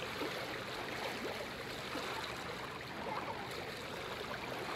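Shallow seawater lapping and washing over a pebbly shoreline, a steady rush of small ripples close by.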